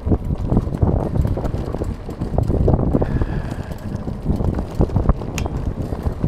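Wind buffeting the microphone of a rider on a moving electric bike, with frequent knocks and rattles from riding over a bumpy road.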